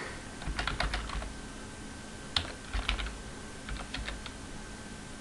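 Computer keyboard typing in short bursts of keystrokes with brief pauses between, over a faint steady hum.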